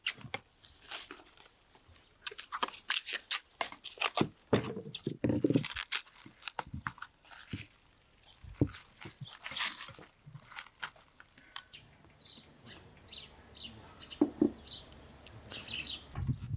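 Plastic cling film crinkling and tearing in sharp crackles as it is pulled off the roll and pressed over a bowl. Near the end, a series of short high chirps from a bird.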